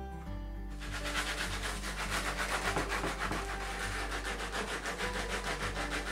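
Sanding sponge rubbed quickly back and forth by hand along the cut edge of a round hole in a wooden board, about five strokes a second, starting just under a second in.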